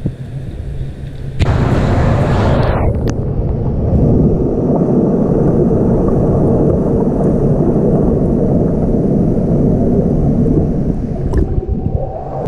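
A sudden splash about one and a half seconds in, then a steady, muffled underwater rumble and gurgle of churning pool water as swimmers pass, heard through a submerged action camera. Near the end the camera breaks the surface with a click and the sound changes.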